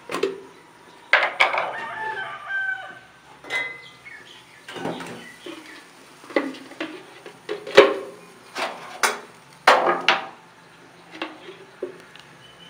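Domestic chickens clucking, with a rooster crowing about a second in, amid scattered sharp knocks.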